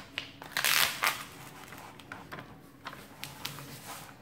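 A diamond-painting canvas and its protective cover sheet rustling and crinkling as they are lifted and smoothed flat by hand. The loudest rustle comes about a second in, followed by lighter crackles and strokes.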